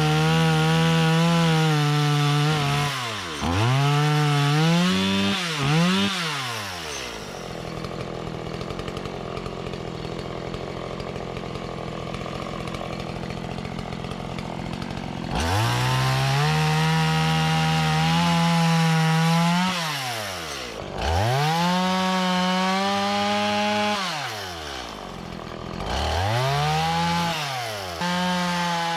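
Two-stroke chainsaw cutting a log at full throttle. It drops to idle several times and idles for about eight seconds in the middle before revving back up to cut again.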